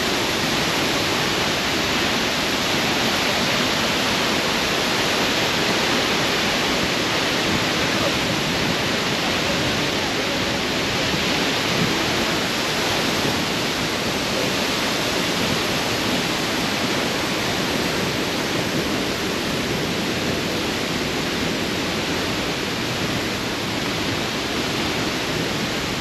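Waterfall rushing: a loud, steady, unbroken wash of falling water.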